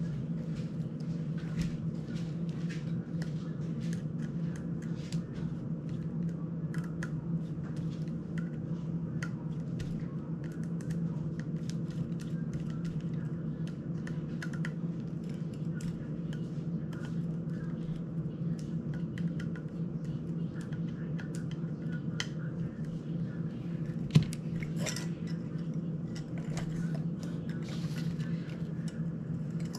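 Small clicks and taps of a precision screwdriver and small drone-frame parts being handled and screwed together, over a steady low hum. One sharper click stands out about three-quarters of the way through.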